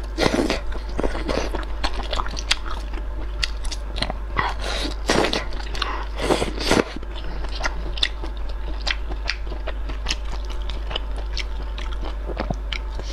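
Close-miked eating of noodles in spicy broth: steady chewing with many small mouth clicks, and a few longer, louder slurps, one just after the start and a cluster around the middle.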